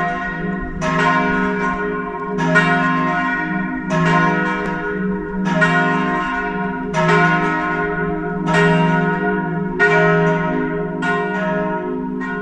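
Church bells swinging in a tower, a stroke about every one and a half seconds, each one ringing on into the next.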